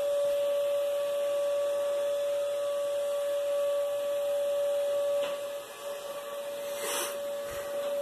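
Vacuum cleaner running, a steady whine over a hiss, with two brief sharp noises about five and seven seconds in.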